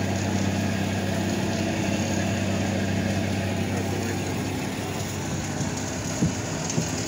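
Small ride boat's motor running steadily with a low hum, a little quieter in the second half.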